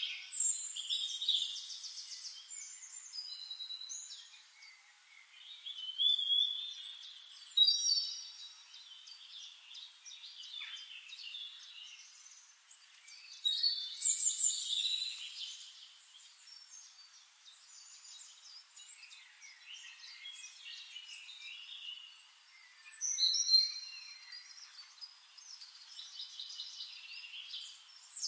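Several songbirds singing over one another, a mix of chirps, trills and short whistles, with louder phrases about six seconds in, around fourteen seconds and near twenty-three seconds.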